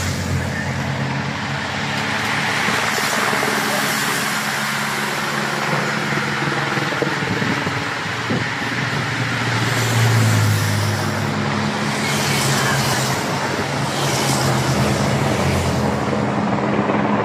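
Race-convoy motor traffic: motorcycles and a team car with engines running steadily as they pass close by, mixed with the passing bicycle peloton; the engine noise swells about ten seconds in.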